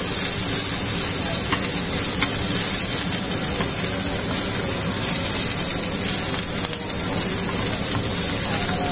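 Green chillies and curry leaves sizzling in hot oil in a frying pan, a steady hiss as they are turned with a mesh strainer.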